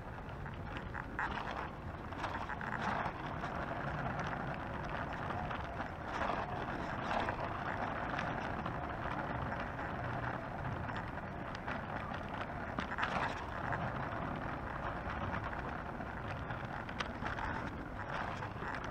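Oxelo Town 9 EF V2 kick scooter rolling along a paved path: a steady rolling noise from its small hard wheels, with short knocks and rattles here and there as it goes over bumps.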